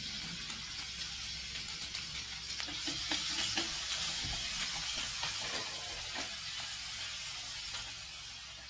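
Minced onion and garlic sizzling in hot cooking oil in a steel wok, stirred with wooden chopsticks that click and scrape against the pan. The sizzle fades gradually toward the end.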